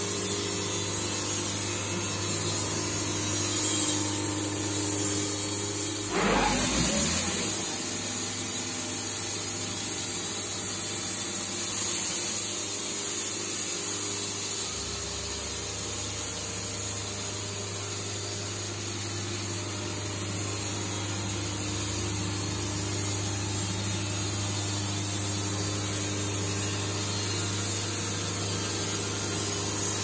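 Wood-Mizer LT70 band sawmill running: its engine and band blade give a steady hum and hiss, with a brief louder burst about six seconds in.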